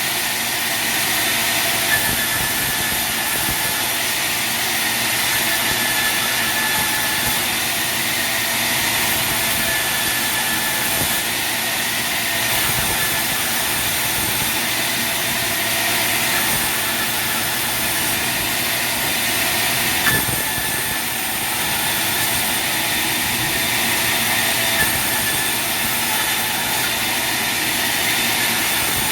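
Sawmill machinery running steadily: a continuous loud high hiss and whine, with a few brief knocks.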